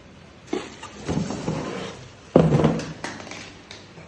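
Vacuum cleaner accessories and their packaging being handled: a few rustles and knocks, the loudest knock about two and a half seconds in.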